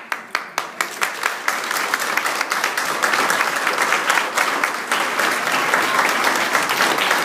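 Audience applauding: loud, distinct claps close by, about four a second, that within a couple of seconds swell into dense crowd applause.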